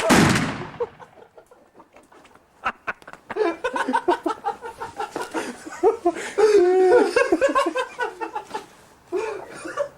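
The tail of a firework's fizzing burst fades out in the first second, a few sharp pops follow, then men break into loud, cackling laughter for several seconds.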